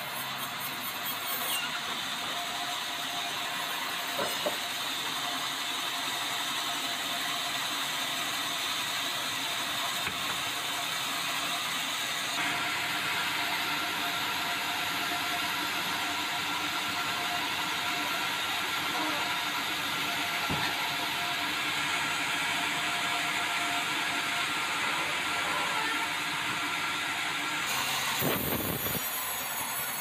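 Band sawmill running: a steady mechanical drone with a few steady whining tones, its sound changing abruptly a few times, with a few light knocks and a short low thump near the end.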